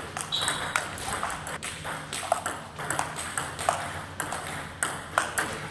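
Table tennis rally: the ball clicking off the bats and bouncing on the table, about two to three sharp pings a second.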